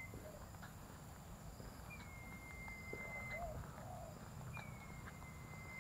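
Faint footsteps of a person walking, soft irregular steps picked up by an action camera's built-in microphone. A thin high whistle sounds twice, each held for about a second and a half.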